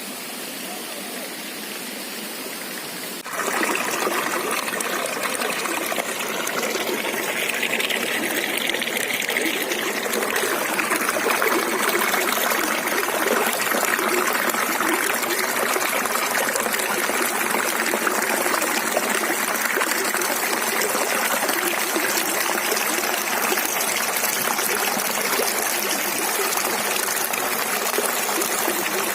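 River water flowing and splashing steadily, becoming suddenly louder about three seconds in.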